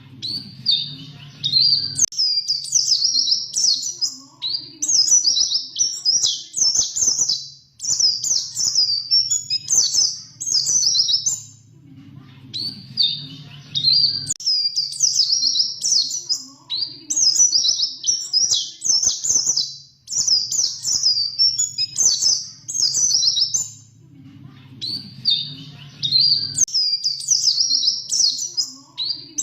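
Pleci (white-eye, Zosterops) singing in rapid, high twittering phrases of a few seconds each, repeated with brief pauses. A faint low hum sits under some of the phrases.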